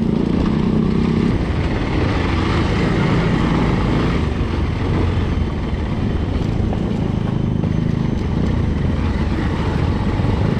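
Motorcycle engine running steadily under way, its pitch shifting a little with the throttle, with wind rushing over the microphone.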